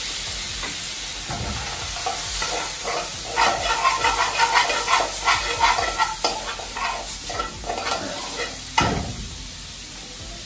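Chicken frying in a wok, sizzling steadily, with a metal spoon scraping and clattering against the pan as it is stirred, from about three to eight seconds in. One sharp knock comes near the end.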